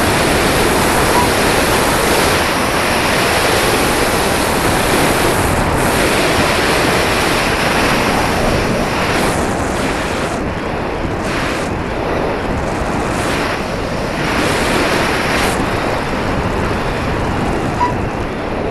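Wind noise from air rushing over the microphone of a radio-controlled plane's onboard camera in flight: a loud, steady rushing hiss. From about halfway through, the upper hiss thins out in short stretches and comes back.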